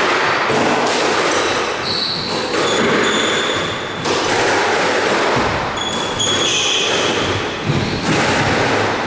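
Squash rally: the small black ball struck by rackets and smacking off the court walls again and again, with short high squeaks of shoes on the court floor between the hits.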